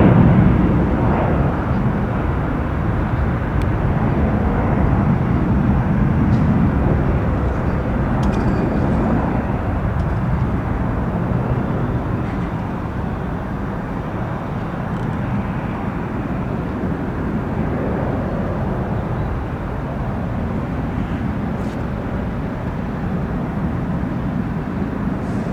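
Jet airliner's engines, a steady rumble and hiss that is loudest at the start and slowly fades over the first dozen seconds, then holds at a lower level.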